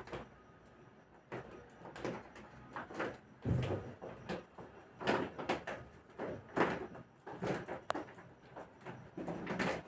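Kittens wrestling on a bed: irregular rustling and scuffling of the bedsheet, with soft bumps.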